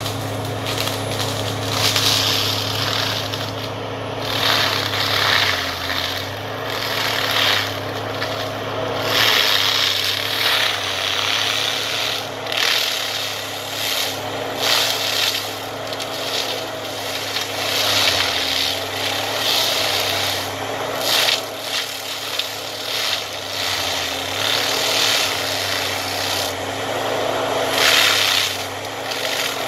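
SEVE forestry mulcher on a Euromach R145 walking excavator shredding brush and reeds, with the excavator's engine running steadily under it. The shredding comes in repeated surges every second or two as the rotor bites into the vegetation.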